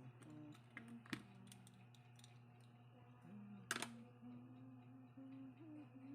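Scattered faint clicks and taps, two sharper ones about a second in and near the four-second mark, over a steady low hum.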